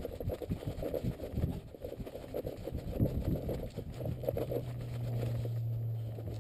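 Footsteps scuffing along a dirt trail strewn with dry leaves and twigs, with rustling, at an uneven pace. From about four seconds in, a steady low hum joins them.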